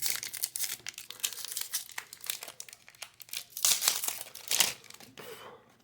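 Plastic wrapper of a baseball-card pack crinkling as it is handled and opened, in bursts of crackling that are loudest near the start and again around four seconds in, then fade out.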